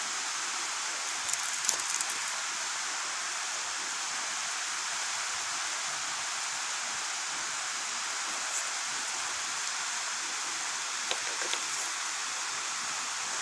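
Steady rush of flowing river water, with a few faint clicks about two seconds in, once near the middle and a few times near the end.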